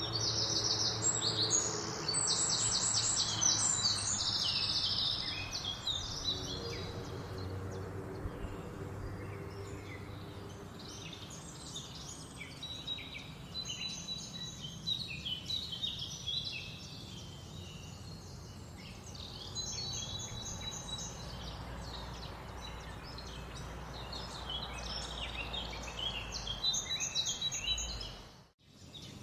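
Outdoor ambience of many small birds chirping and singing rapid, high trills over a steady background hiss. The trills are busiest in the first few seconds, and the sound drops out for a moment near the end.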